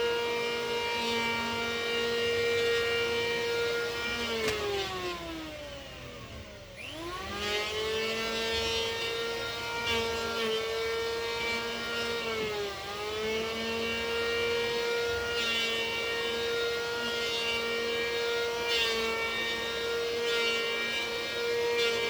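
A machine's steady high-pitched whine that sags sharply in pitch and climbs back about four seconds in, dips briefly again near the middle, then holds steady, with a few light clicks in the second half.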